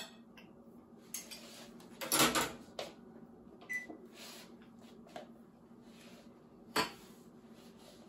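Knocks and clatters of dishes and utensils handled on a kitchen counter. The loudest is a short cluster about two seconds in, another sharp knock comes near seven seconds, and a brief ring sounds near four seconds.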